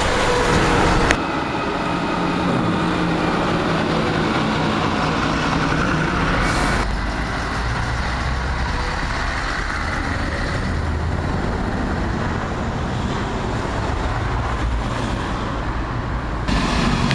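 Heavy lorries driving past at close range: diesel engines running and tyres on the road surface. The sound changes abruptly three times.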